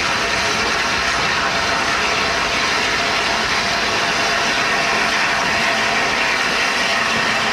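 Peppercorn A1 Pacific steam locomotive 60163 Tornado, a three-cylinder 4-6-2, running slowly past at close range with a steady hiss of steam over the rumble of the train, and no distinct exhaust beats.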